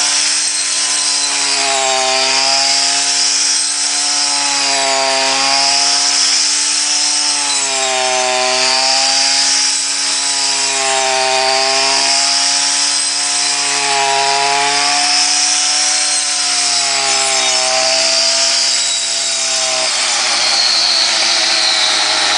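Small Stihl engine on a homemade wheat harvester running at high revs, its pitch dipping and recovering about every two seconds as it takes load, then dropping lower near the end as it slows.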